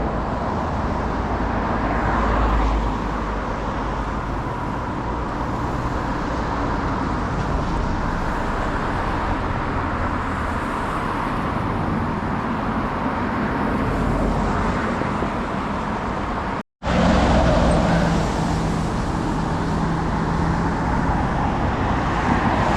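Steady road traffic noise with cars passing, one swelling louder about two seconds in. The sound cuts out completely for a split second about three-quarters of the way through.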